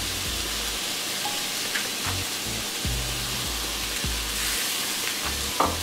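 Steak and cabbage slaw sizzling in a hot cast iron skillet, a steady frying hiss, with background music with a low bass line underneath.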